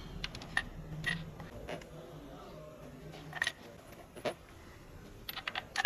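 Scattered light metallic clicks and clinks of a spark plug socket and extension as a new spark plug is threaded into the cylinder head by hand, with a few quicker clicks near the end.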